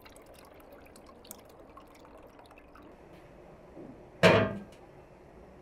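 Pomegranate juice dripping faintly from a squeezed cloth into an aluminium pot, then about four seconds in a single loud clunk as the metal pot is set down on a board.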